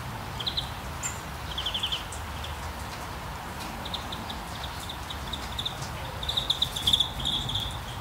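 A small songbird giving short, fast high trills and chirps: a brief trill at the start, a quick run of chirps midway, and the loudest, longest trill near the end. Under it runs a steady background hiss and low rumble.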